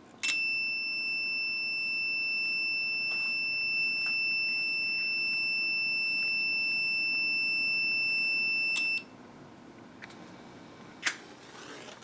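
Continuous high-pitched electronic alarm tone that sounds for about nine seconds, then cuts off suddenly. It is the alarm signal of a vintage ionization smoke detector that has sensed match smoke.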